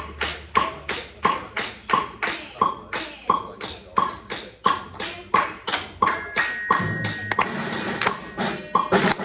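Metronome clicking steadily, about three beats a second, each click with a short pitched ring. About six seconds in, a few brief held notes from the band's instruments sound over it, one of them low.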